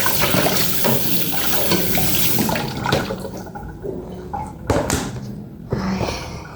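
Water running from a kitchen tap into the sink while something is washed under it, shut off about two and a half seconds in. A few knocks and clatters follow.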